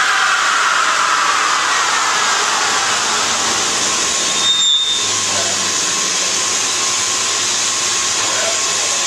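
2011 Mustang GT running on a chassis dyno: a steady, loud rushing of the rear tyres spinning on the rollers, with a whine that falls in pitch over the first couple of seconds as the drive winds down. There is a brief break just past halfway.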